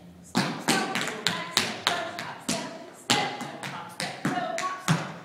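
Tap shoes striking the floor in a quick, uneven run of about twenty sharp, ringing taps, starting a moment in and stopping just before the end.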